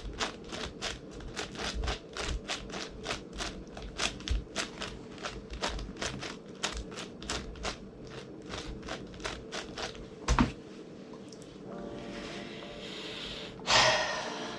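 Plastic clicks of a big 11x11 Rubik's cube's layers being turned one-handed, about three to four turns a second, stopping with a single sharper knock about ten seconds in. A short loud rushing sound follows near the end.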